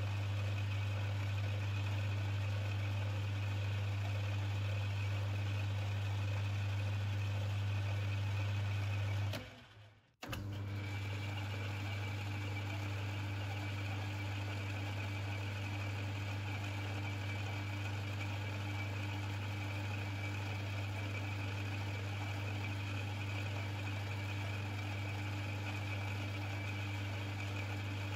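Metal lathe running steadily, a constant motor hum with a faint high whine, while a roller chamber-burnishing tool is run into a 9mm Luger chamber in the spinning steel. About nine seconds in the sound fades out for about a second, then comes back.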